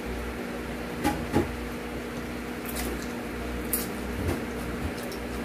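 Close-miked eating sounds: egg noodles (pancit canton) slurped into the mouth and chewed, with a few short wet smacks and clicks. A steady low hum runs underneath.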